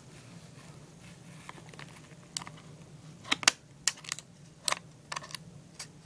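Scissors snipping through a stiff plastic blister pack and the plastic crackling as it is cut and pried apart: a scatter of sharp clicks and snaps in small clusters, starting about two seconds in.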